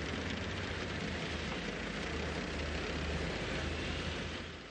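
M48 tanks driving: a steady low engine and track rumble that fades near the end.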